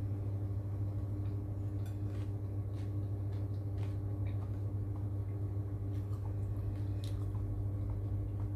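A person chewing a mouthful of durian salad, with small faint clicks of a spoon in the bowl, over a steady low electrical hum.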